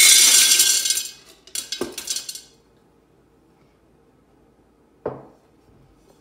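Small rocks poured into a terracotta pot, rattling and clinking against the clay, the pour stopping about a second in. A shorter clatter of a few more stones follows, then a single knock near the end.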